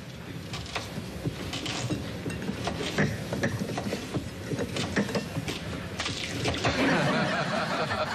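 Kitchen clatter: a run of small clicks and clinks, as of an egg, bowl and utensils being handled, growing busier about six seconds in.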